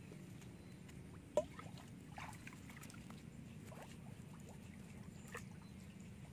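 Faint sloshing and splashing of hands groping through shallow muddy ditch water for fish, with one sharp splash or knock about a second and a half in. A low steady hum runs underneath.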